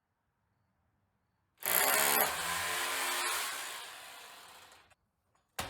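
Electric demolition hammer starting suddenly about one and a half seconds in, loudest for about half a second, then winding down and cutting off. A single sharp click comes near the end.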